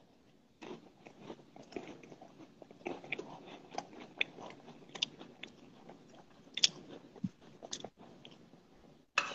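A person quietly chewing something crunchy close to the microphone: soft, irregular crunches and clicks.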